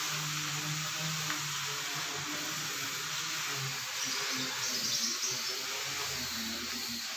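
Steady hiss of background noise, with faint low tones coming and going in the first half.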